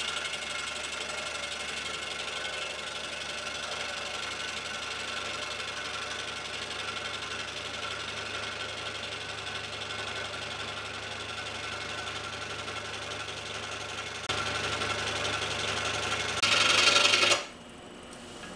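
Scroll saw running and cutting through a small block of wood, a steady mechanical whir. It gets louder about 14 seconds in, peaks in a brief harsh burst about two seconds later, then drops off sharply shortly before the end.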